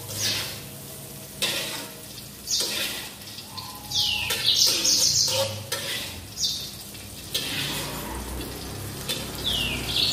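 Hot oil sizzling in a wok as fried green beans are scooped out, with a metal spatula scraping and knocking against the pan a few times. Birds chirp now and then in the background.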